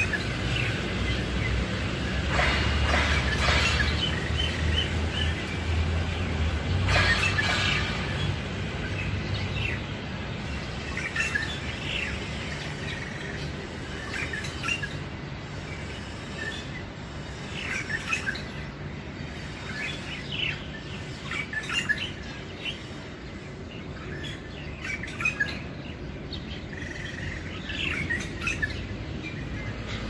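A shrike (pentet) singing on and on in short chirping notes and twittering phrases. A low rumble lies under the first several seconds.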